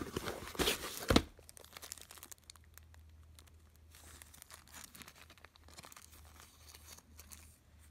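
Small plastic bag being handled and crinkled between the fingers, loudest for about the first second, then only faint scattered crinkles.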